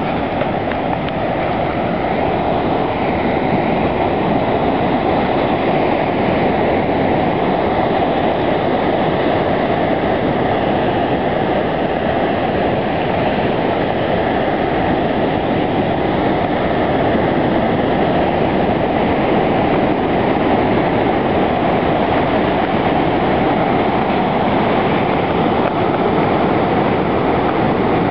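Heavy surf breaking over coastal rocks: a loud, steady rush of crashing waves and churning white water.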